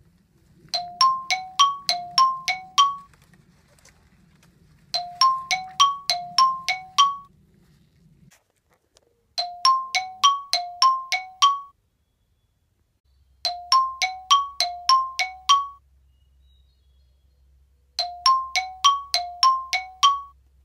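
A short figure of quick, ringing bell-like notes, about seven to a phrase on two or three pitches. The same phrase repeats five times, starting every four seconds or so.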